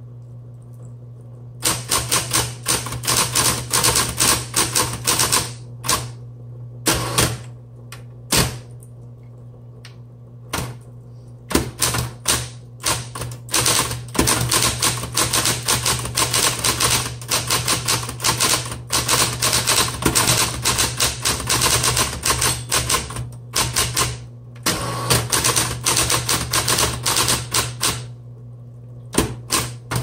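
Smith Corona Coronet Super 12 electric typewriter being typed on in fast runs of keystrokes with short pauses and a few single strikes between, its motor humming steadily underneath.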